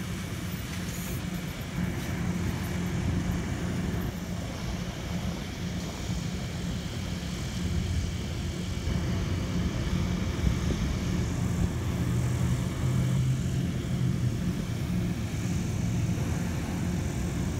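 EMD diesel locomotive engine drone and the rumble of a passing passenger train, steady and even.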